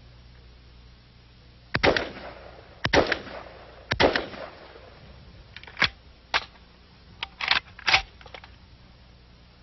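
Semi-automatic AK-47 look-alike rifle firing single shots, one round per trigger pull: three shots about a second apart, then after a short pause four or five more in quicker succession, each a separate crack with a brief echo.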